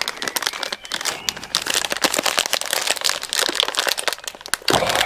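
Small plastic packet crinkling in the hands as it is handled, a dense run of irregular crackles.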